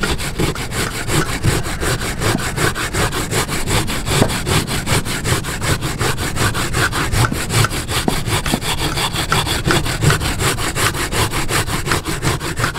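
Coconut flesh being rasped on a wooden hand grater (parutan), in quick, regular strokes.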